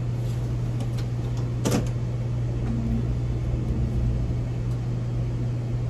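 A motorhome's engine idling with a steady low hum, as it sits ready to pull away. A single sharp knock sounds about two seconds in.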